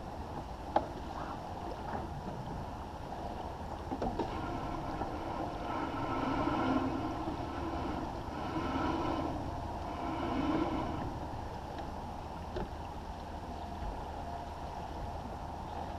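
Water rushing and splashing along the hull of a First 30 sailboat moving under sail, swelling and easing a few times as it meets the waves, with a few small knocks.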